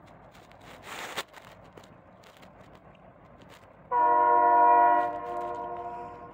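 Air horn of an oncoming diesel freight locomotive, a Genesee & Wyoming SD60I, sounding a chord of several tones about four seconds in. It is loud for about a second, then held more softly for another second or so. A short rushing noise comes about a second in.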